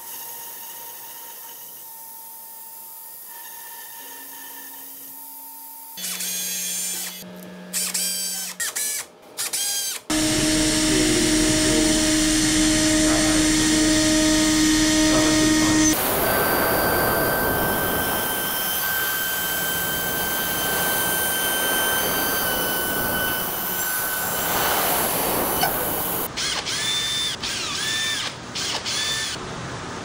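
CNC router spindle milling an aluminium plate: a steady whine over harsh cutting noise. The pitch and loudness change abruptly several times, quieter at first and much louder from about a third of the way in.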